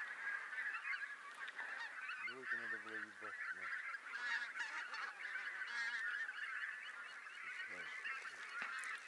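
A flock of geese honking, many calls overlapping in a continuous chorus, with a few lower, louder calls standing out about two and a half seconds in and again near the end.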